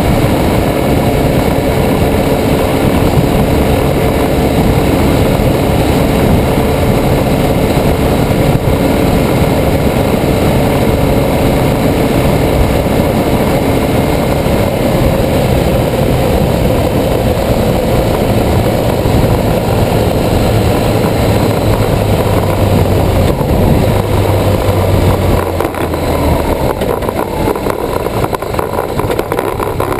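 2009 BMW R1200GS boxer twin running at road speed, with wind noise and the rattle of a broken camera mount. The engine note drops near the end.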